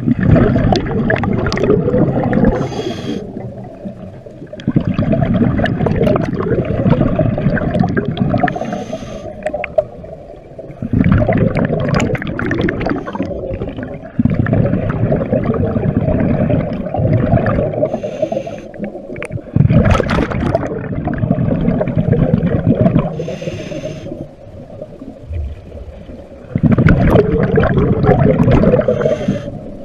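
Scuba diver breathing through a regulator underwater: a brief hiss on each inhale, then a loud bubbling rumble of exhaled air. The cycle repeats every few seconds.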